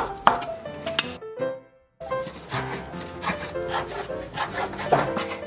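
Chef's knife slicing shiitake mushrooms, then beef tenderloin, into thin strips on a bamboo cutting board: quick, uneven taps and scrapes of the blade on the wood, over background music. The sound drops out briefly about a second and a half in.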